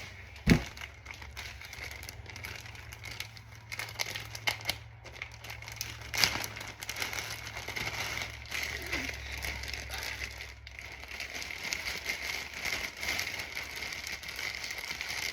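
Slime with foam beads being kneaded and squished by hand, giving a continuous crackling, crunching sound with many small clicks. A sharp thump about half a second in is the loudest sound.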